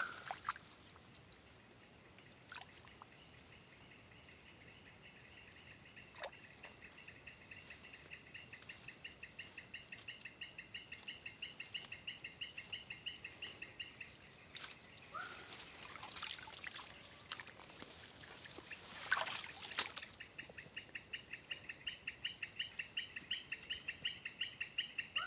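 Outdoor wildlife ambience: a rhythmic, high-pitched pulsed call repeating several times a second in two long runs, with a few short rising chirps and scattered clicks in between.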